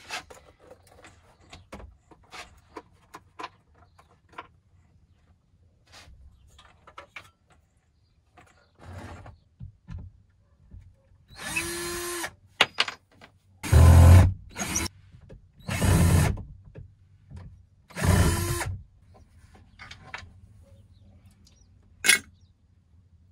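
Cordless drill running in about five short bursts between about 11 and 19 seconds, backing screws out of a wooden wall trim panel. Light clicks and knocks of handling come before the bursts, and one sharp click comes near the end.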